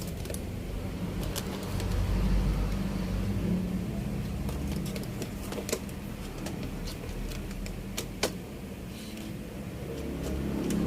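Low rumble of a passing motor vehicle, swelling about two seconds in and again near the end, with a few sharp clicks scattered through.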